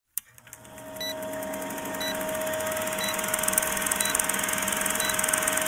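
Old film projector sound effect: a rapid, even mechanical clatter with a steady hum, and a short blip about once a second, as for a film countdown leader.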